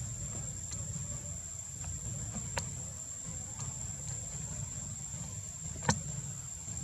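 Outdoor ambience: a steady high-pitched insect drone over a low rumble, with a few faint ticks and two sharp clicks, the louder one about six seconds in.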